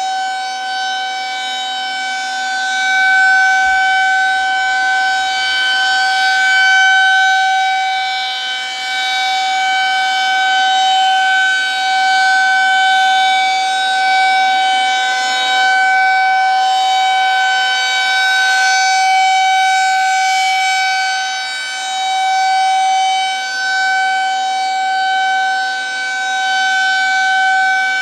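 Federal Signal 2001-SRNB rotating electromechanical warning siren sounding a steady tone at constant pitch. It is loud, and its level swells and fades every few seconds as the rotating head sweeps past.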